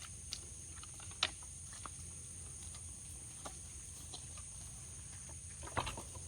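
Farmyard chickens clucking now and then, with a sharper cluck just over a second in and a short flurry near the end, over a steady high insect buzz.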